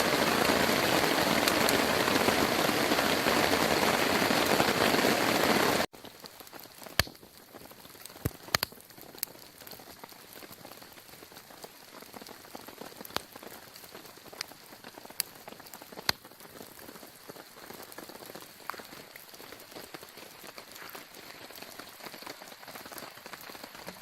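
Steady, loud hiss like heavy rain that cuts off abruptly about six seconds in, followed by a much quieter hiss with scattered sharp clicks and pops.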